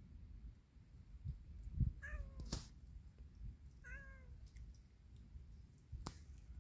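A cat meowing twice, two short meows about two seconds apart, with two sharp clicks, the louder right after the first meow.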